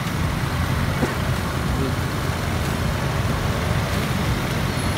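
Street traffic at a busy intersection: a steady low rumble of motor scooters and cars idling at a red light and passing through the crossing.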